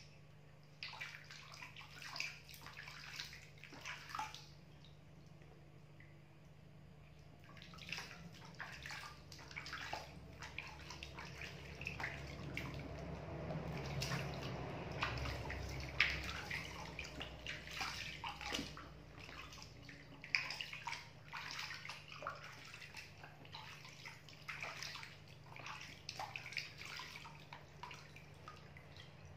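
Bath water sloshing and splashing in a plastic baby bathtub as a baby monkey is washed by hand, in irregular bursts with a lull about five seconds in and the busiest splashing around the middle.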